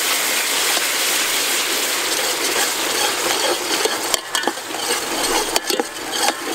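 Dark sauce sizzling hard in a hot aluminium pot, a steady hiss, while a metal ladle stirs through it. From about four seconds in, the ladle clicks and scrapes against the pot a few times.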